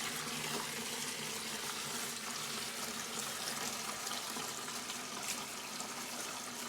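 Water running steadily from a tap, rinsing the excess dye out of a freshly unwrapped tie-dyed item.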